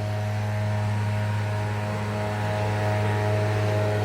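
Steady machine hum, with a strong low drone and a few fainter steady tones above it, running evenly throughout.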